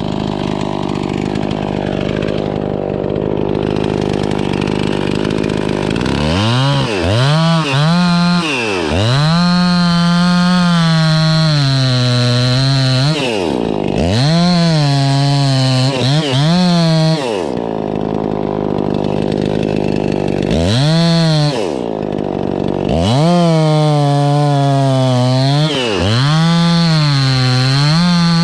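Two-stroke chainsaw running, lower for the first six seconds, then at full throttle with its pitch dipping sharply and recovering again and again as it cuts into poplar wood.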